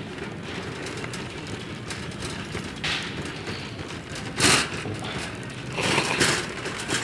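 Shopping cart rolling across a hard store floor, its wheels giving a steady low rumble, with louder rattling bursts about four and a half and six seconds in.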